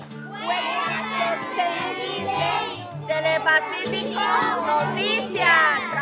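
A group of children's voices singing together over background music.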